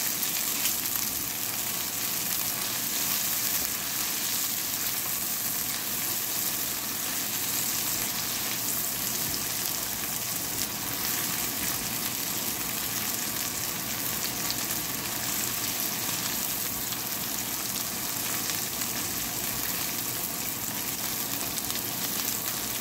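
Shrimp, sliced onion and garlic sizzling steadily in hot oil in a pan, with a spatula stirring them through.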